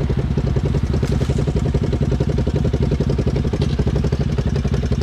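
ATV engine running steadily with a fast even putter, neither revving up nor slowing down.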